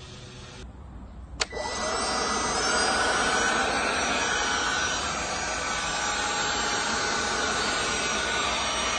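Black+Decker 18V cordless leaf blower switched on with a click about a second and a half in. Its motor spins up with a rising whine and then runs steadily, blowing hard with the power boost button held.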